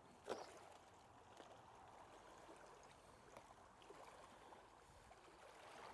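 Near silence: a faint steady outdoor background hiss, with one brief soft sound about a third of a second in.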